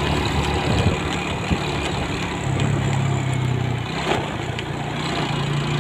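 Vehicle engine running with a steady low hum while driving along a street, a little stronger for about a second near the middle.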